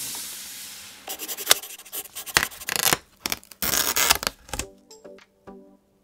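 Rubbing, scraping and small clicks of gloved hands handling an iMac G4's plastic display and chrome neck. About three-quarters of the way in, the handling stops and music with short, separate notes takes over.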